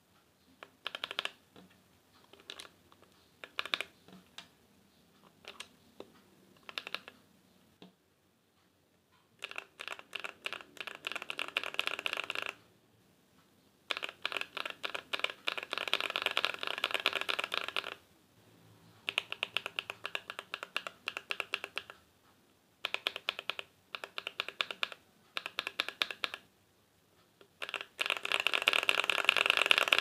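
Typing on a mechanical keyboard fitted with stock KTT Red Wine linear switches and Cherry-profile keycaps. It starts with a few scattered keystrokes, then comes in bursts of fast typing a few seconds long with short pauses between them, the busiest near the end.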